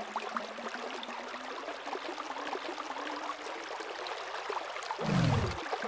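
Mountain creek water rushing and splashing over rocks, a steady watery rush. About five seconds in, a loud, deep sound slides down in pitch for about half a second.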